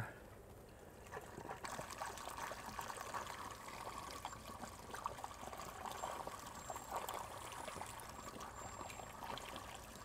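White distilled vinegar poured from a gallon jug into a funnel and fill pipe feeding an RV water heater tank: a steady trickling pour that starts about a second in.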